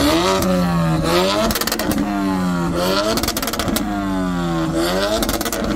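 A turbocharged four-cylinder hot hatchback revved hard through a loud aftermarket exhaust, the pitch climbing and falling about three times, with bursts of crackling exhaust pops.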